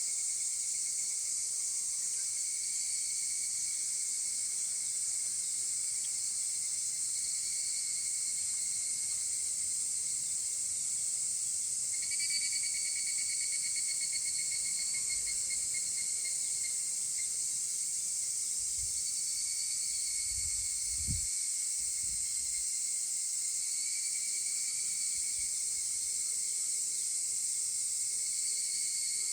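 Higurashi cicadas (Tanna japonica) calling over a steady high-pitched insect chorus, with overlapping rapid pulsed calls; the nearest and clearest call starts about twelve seconds in and runs about five seconds. A few faint low thumps come near the middle.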